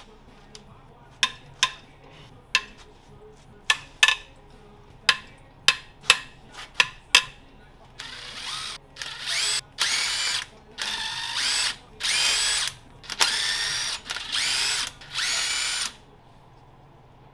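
Sharp metallic clinks of tools on metal, then a handheld power tool spinning in about eight short bursts, its motor whine rising in pitch as each burst starts, while fasteners are taken off during an engine teardown.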